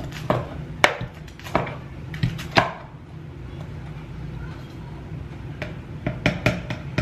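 Vitamix tamper thrust down into thick frozen-fruit smoothie in the plastic blender jar, knocking and thudding at irregular moments: several strokes in the first few seconds, a pause, then a few more near the end.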